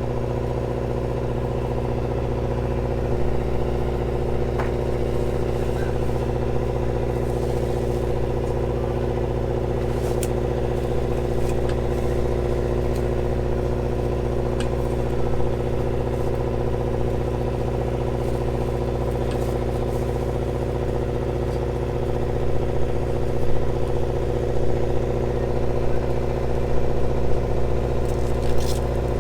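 A boat's engine running steadily, a constant hum with an even, unchanging pitch. A few light knocks and rattles come near the end.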